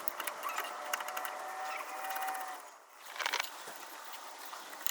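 Ratchet clicking in rapid ticks as the wheel cylinder's mounting bolts are run in on a rear drum brake backing plate. A short pause comes near the middle, then a few sharper metal clicks.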